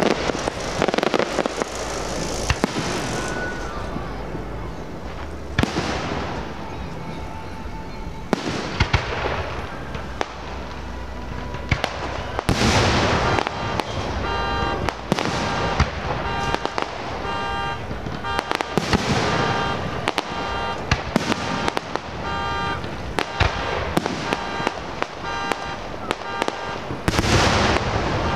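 Fireworks display: aerial shells bursting one after another every few seconds, each burst with a trailing crackle and echo. Music plays underneath through the second half.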